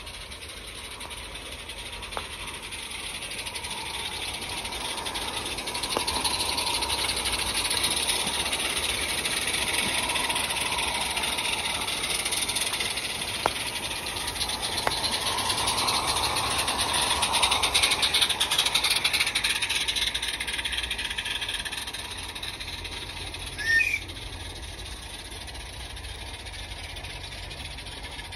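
Small live-steam garden-railway locomotive hauling a rake of coaches past, running with a steady hiss and rattle that grows louder as it nears, stays loud through the middle and fades as it moves off. A brief high chirp sounds near the end.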